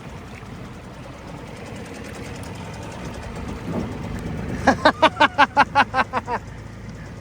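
Nissan Super 5 two-stroke outboard motor running steadily. About two-thirds of the way in, a quick run of about ten loud, rapid vocal sounds rises over it.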